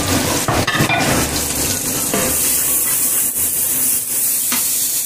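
Freshly added ground spices and onion masala sizzling in oil in a nonstick frying pan while a wooden spoon stirs and scrapes through it, with a few light knocks of the spoon.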